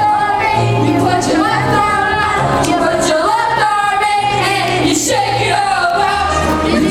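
Recorded music with a female singing voice over a steady bass line.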